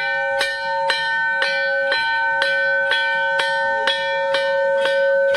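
Hanging brass temple bell rung by hand, struck about twice a second in an even rhythm, each strike ringing on into the next.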